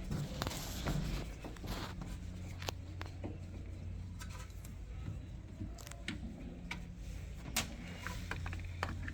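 Scattered clicks, taps and scrapes of hands and tools working on washing-machine parts, over a steady low hum.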